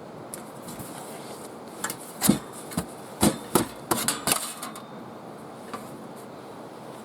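A cluster of hard knocks and clacks, about half a dozen, from parts of a folding camp side table being handled and set up, coming from about two seconds in to about four and a half seconds.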